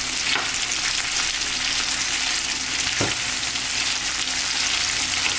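Sliced andouille sausage sizzling steadily in a skillet while it is stirred with a spatula, with a couple of knocks of the spatula against the pan, about half a second in and about three seconds in.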